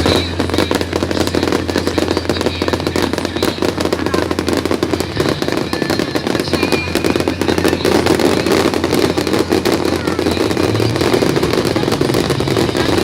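Fireworks display going off in a dense, continuous barrage of crackles and bangs.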